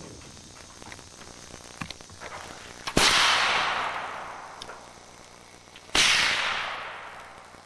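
Two black-powder muzzleloading rifle shots about three seconds apart, each a sharp crack followed by a long, slowly fading echo.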